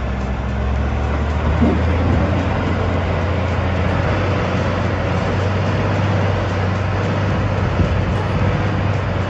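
Heavy machine's diesel engine running steadily under load, with a deep steady hum and a wash of mechanical noise.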